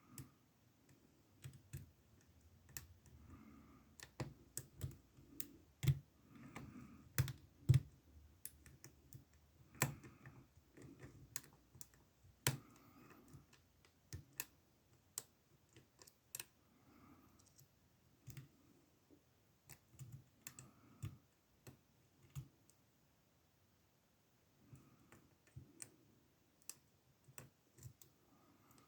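Lock picking on a SIL 30mm padlock: a pick and tension wrench working the pins, making many small irregular clicks and light metallic taps, with a short quiet spell a little after the middle.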